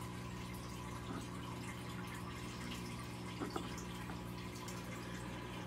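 Aquarium filter running: a steady trickle of water over a low, even hum, with two small clicks about three and a half seconds in.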